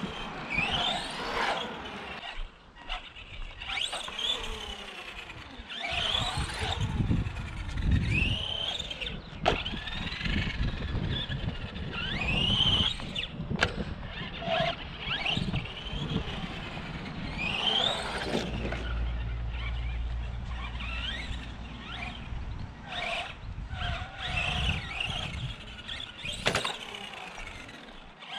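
Electric RC monster truck's motor and gears whining in short bursts that rise in pitch as the truck accelerates, over and over, with the odd knock as it lands or hits the concrete.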